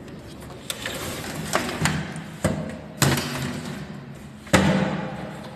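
A series of about six sudden knocks and thuds at uneven spacing, the loudest two about three and four and a half seconds in, each followed by a short echo.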